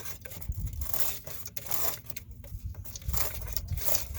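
A hand tool scraping and dragging wet debris out of a 4-inch PVC drain pipe: irregular rough scrapes and crunches with dull low knocks. The pipe is clogged with soil from where it broke.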